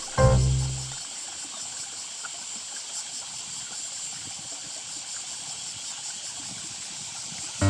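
Shallow river water running steadily, an even rushing hiss. A last note of background music rings out in the first second.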